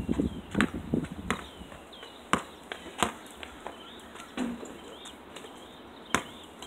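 Basketball bouncing on an asphalt street: a few sharp, separate smacks in the first three seconds and one more near the end.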